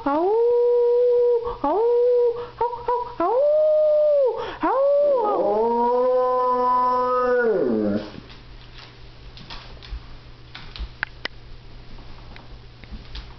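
Dog howling: a string of held howls broken by short gaps, then one long howl that falls away about eight seconds in, leaving only faint clicks.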